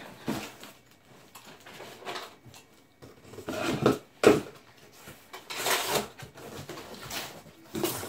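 Cardboard shipping box being handled and opened: scuffs, rustles and knocks of cardboard, with a sharp knock about four seconds in.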